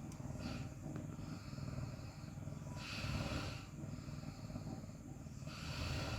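Domestic cat purring steadily, with a breath drawn in audibly about every three seconds.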